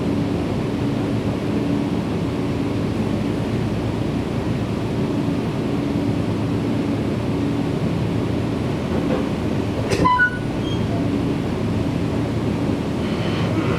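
Nankai 7100-series electric train running, heard from inside the passenger car: a steady rumble of wheels on rails and running gear. About ten seconds in there is one sharp metallic clank with a brief ringing tone.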